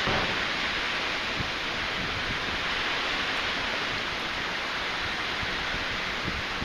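Typhoon storm noise: a steady, dense hiss of wind and water, with gusts buffeting the microphone now and then.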